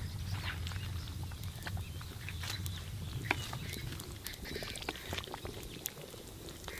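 Metal ladle stirring and scraping thick fish-head curry gravy in an iron kadai over a wood fire: scattered sharp clicks and scrapes over a low steady rumble.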